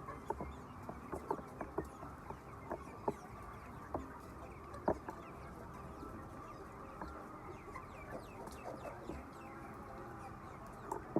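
A large flock of laying hens clucking together in a continuous murmur, with many short sharp clicks and brief calls scattered throughout.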